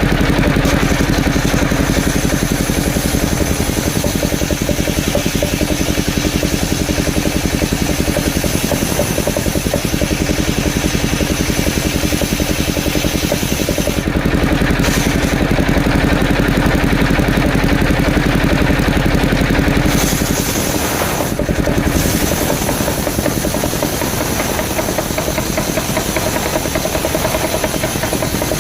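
Engine of a motorised wood saw running steadily, with a slight drop in loudness and change in tone about twenty seconds in.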